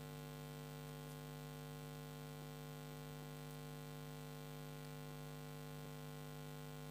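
Steady low electrical hum with a faint hiss: the recording's background noise, with nothing else sounding.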